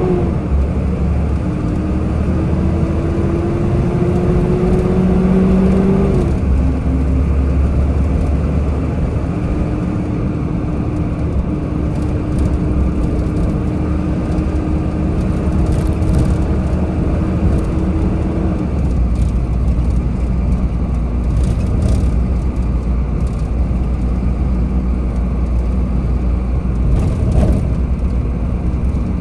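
A car driving in traffic: engine and road noise with a heavy low rumble. The engine note climbs slowly and drops sharply about six seconds in, as with a gear change, then holds steady and drops again later on.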